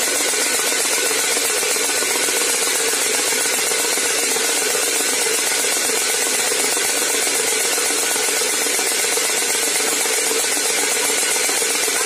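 Homemade wind-driven bird scarer spinning fast, its fan-blade rotor whipping a striker against a tin can in a steady, continuous rattling clatter meant to frighten sparrows from rice fields.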